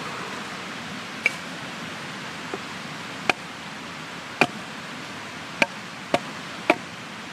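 About seven sharp blows on a wild cherry log being split into billets with hand tools, spaced irregularly, each with a short ringing tone. A steady rushing noise runs underneath.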